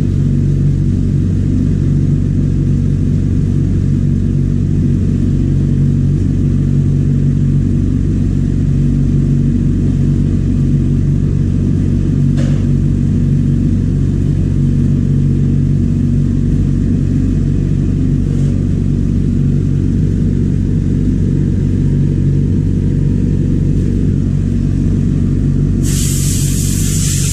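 Refrigeration vacuum pump running with a steady low hum while it evacuates a refrigerator's sealed system. A loud hiss starts suddenly about a second before the end.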